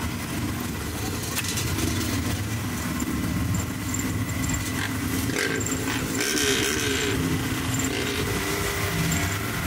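Off-road vehicle engines running, with one engine's pitch sliding up and down about halfway through.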